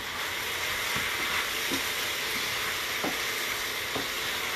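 Fried chicken pieces, peppers and pineapple sizzling steadily in a hot pan with sweet chili sauce, with a few faint knocks as the food is stirred.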